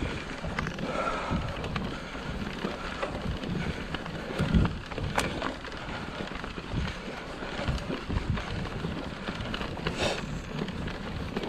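Orbea Rallon mountain bike riding over a bumpy grass field: tyre rumble and wind on the microphone, with scattered knocks and rattles from the bike over bumps, the heaviest thump about halfway through.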